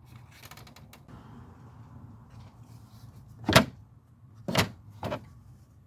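Tools and hard plastic parts handled while unbolting an engine-bay air intake duct: a few light clicks in the first second, then three sharp knocks, the first and loudest about three and a half seconds in.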